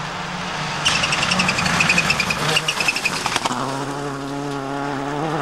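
Subaru Impreza WRC rally car's turbocharged flat-four engine at high revs on a gravel stage. About a second in it turns into a harsh, buzzing rasp for a couple of seconds, then settles into a steadier held note.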